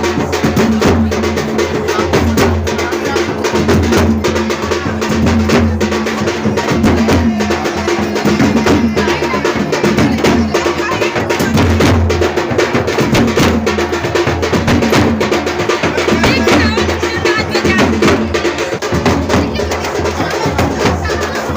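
Loud drum-heavy dance music: fast, dense drumming over a heavy bass that runs without a break.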